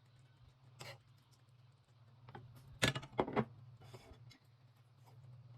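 Sounds of someone eating a meal: scattered short clicks and scrapes of utensils and dishes, two louder ones close together about three seconds in, over a steady low hum.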